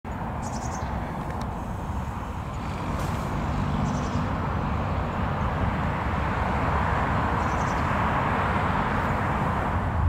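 Steady hum of distant city traffic, swelling slightly. Three faint, short, high-pitched bird calls break through it.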